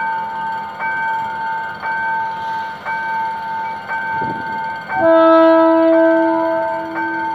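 A level-crossing warning signal rings about once a second. About five seconds in, the GM GT-22CW-2 diesel locomotive's horn sounds a steady chord for about two seconds, louder than the crossing signal.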